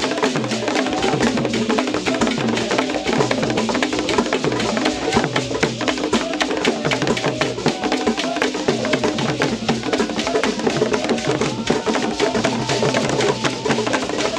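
Ghanaian traditional wooden hand drums playing a fast, steady dance rhythm of dense, sharp strokes.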